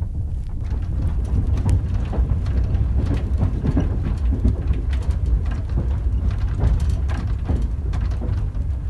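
Passenger train running, heard from inside a compartment car: a steady low rumble with frequent clicks and knocks of the wheels on the rails.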